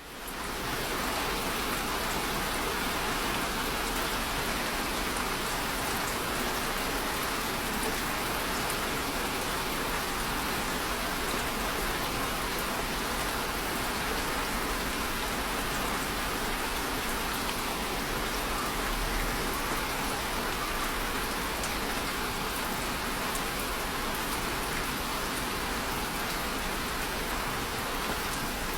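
Steady rain falling: an even hiss with the light patter of individual drops, fading in at the very start and then holding level.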